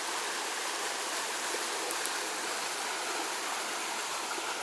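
Small rocky mountain creek running over stones: a steady rush of water.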